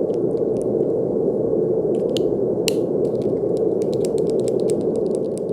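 Continuous brown noise: a steady, deep rushing hiss weighted toward the low end, with faint scattered clicks over it.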